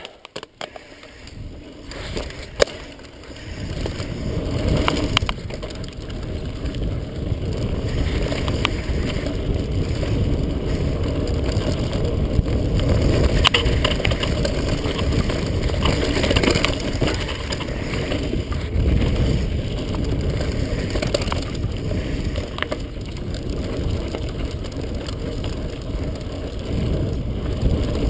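Mountain bike descending a dirt trail: a low rushing noise of wind on the camera microphone and tyres rolling over dirt, with scattered clicks and knocks from bumps. It starts quiet and builds about three seconds in as the bike picks up speed.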